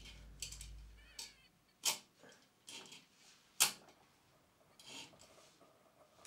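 Brass miner's safety lamp being handled: a few sharp metallic clicks and taps, the two loudest about two and three and a half seconds in.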